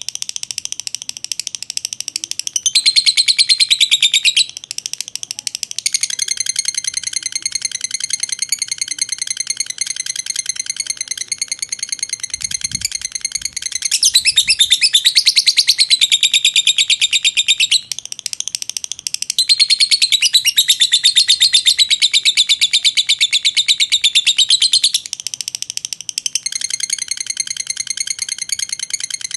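Fischer's lovebird 'ngekek': one long, unbroken run of rapid, shrill, high chattering notes, many per second, with no pause for breath. It swells louder for a few seconds at a time, three times. This long ngekek is the song quality lovebirds are judged on in Indonesian bird contests.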